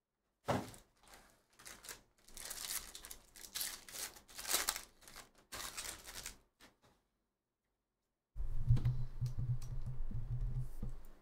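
Foil trading-card packs crinkling and tearing as they are ripped open, in a run of crackly bursts over the first six seconds. After a short pause there is a low rumble with light clicks as the stack of cards is handled.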